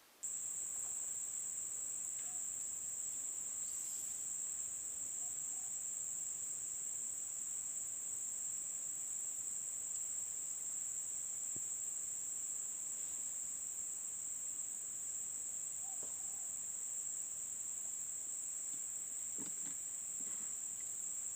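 Insects, most likely crickets, trilling in a steady, unbroken high-pitched chorus that starts abruptly.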